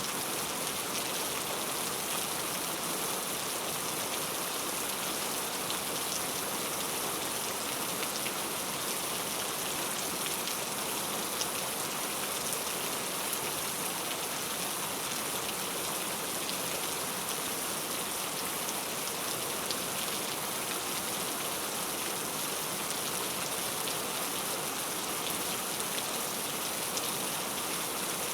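Heavy rain falling steadily: an even hiss with the odd sharper drop ticking through it.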